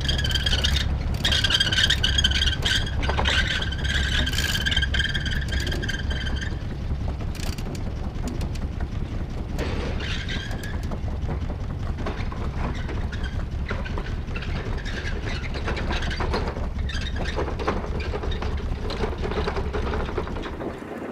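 A small sailing yacht's inboard engine idling, a steady low rumble that stops near the end. A steady high squeal sounds over it for the first few seconds, with a few light knocks of rope handling on deck.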